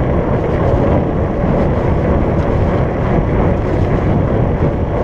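Steady rushing noise of a fat bike being ridden on pavement: wind buffeting the microphone over the rumble of its 4.8-inch Surly Knard tyres.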